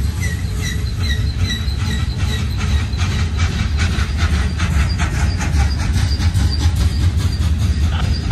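Loaded coal hopper cars of a Union Pacific coal train rolling past on the rails. A steady low rumble of wheels carries regular clicks and a short high chirp repeating about three times a second.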